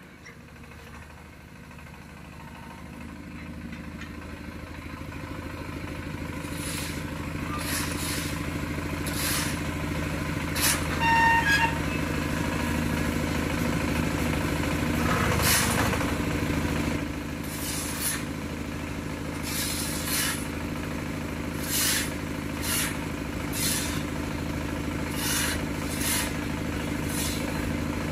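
Diesel engine of a QT4-30 cement block machine running steadily, growing louder over the first few seconds. Over it come repeated short scrapes of shovels working concrete mix into the machine's feed box, and a brief metallic clang about eleven seconds in.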